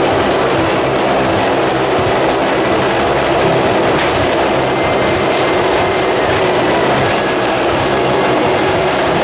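Motorcycles circling inside a steel-mesh globe of death, their engines running hard in a loud, steady din.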